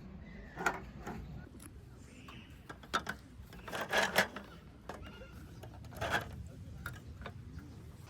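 Knocks, clicks and rustling of a folding wooden roll-top camping table being handled and set up, with the busiest, loudest clatter about four seconds in.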